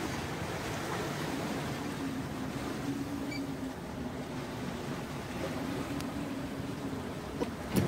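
Steady rush of wind and water aboard a small sailing yacht under way, with a faint low hum for a couple of seconds in the first half.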